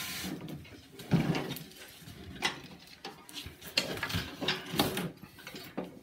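Steel rider mower deck being tipped up and stood on its edge: a run of clunks and knocks with scraping as it is moved, the loudest knock about a second in.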